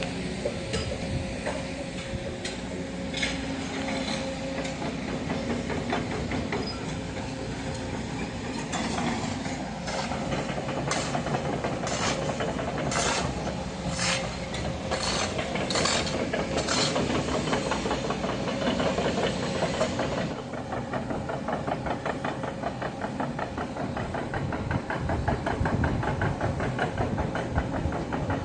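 Caterpillar 307 excavator running, with a string of sharp metallic clanks about once a second midway through. From about two-thirds through, its hydraulic breaker hammers in a fast, even rapid-fire rhythm.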